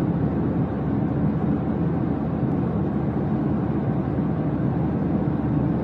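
A steady, unbroken rumbling drone at an even level, its weight in the low and low-middle range.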